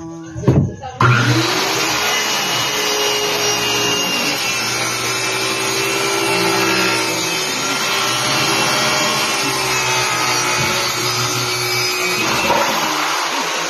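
Electric circular saw spinning up about a second in and cutting through a plywood sheet: a steady motor whine under the rasp of the blade in the wood, until it stops near the end.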